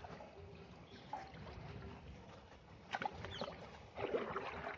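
Faint swishing and lapping of water as a hand stirs the shallow water held in a mesh hatchery net, with a few sharper splashes about three seconds in.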